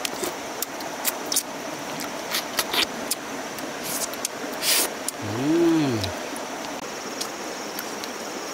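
Close eating sounds of a man eating cooked fish with his fingers: many short lip smacks and mouth clicks, then a short 'mmm' hum rising and falling in pitch about five seconds in. A steady high insect drone runs underneath.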